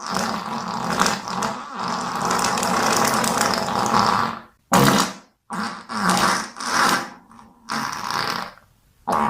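Farting sounds: one long rough fart lasting about four and a half seconds, then a string of shorter farts with brief gaps between them.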